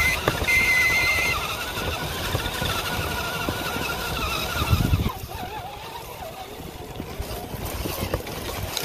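Electric RC rock crawler drivetrain: motor and gears whining, the pitch wavering with the throttle over a rough noise of the tyres working through snow. The whine drops away about five seconds in, then comes back quieter and lower.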